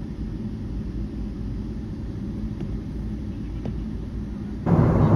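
Steady low rumble of an airport terminal's ambience, heard while walking through the concourse. A faint click comes near the end, then the sound jumps suddenly louder and fuller.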